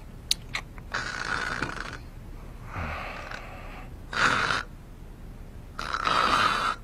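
A sleeping man snoring: four loud, noisy breaths, one about every second and a half, with a few sharp clicks just before the first.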